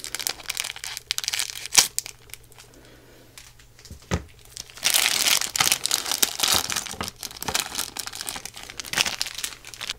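Thin clear plastic bags crinkling as they are handled and opened, with a sharp click about two seconds in and near-continuous crinkling over the last five seconds.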